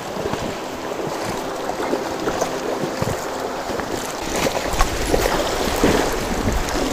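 Shallow river current rushing over a stony bed, with wind buffeting the microphone in a low rumble about two-thirds of the way through and a few faint clicks.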